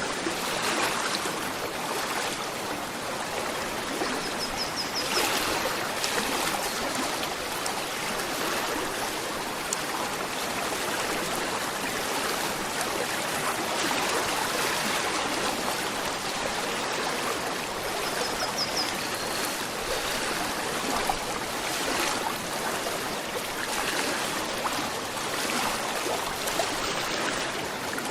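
Gentle river flowing steadily, with the even rush and trickle of running water. Two brief high-pitched chirps sound above it, about a third of the way in and again past the middle.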